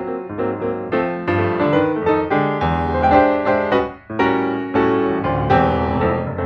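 Background piano music, notes struck one after another at a brisk pace.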